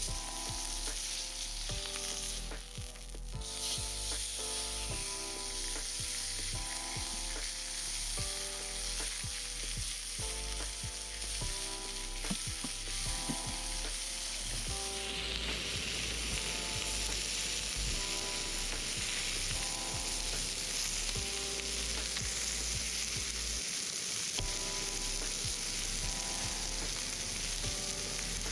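Meat sizzling on a hot iron griddle plate, the sizzle growing louder about halfway through, over background music with a steady beat.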